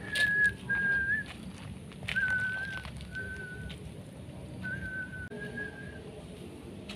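A man whistling a tune through his lips: six held notes of about half a second each, close together in pitch, with short gaps between them.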